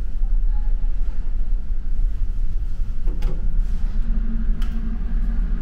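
Steady low rumble of a car ferry's engines and hull heard on board, with a couple of sharp clicks about three and four and a half seconds in and a steady hum coming in near the end.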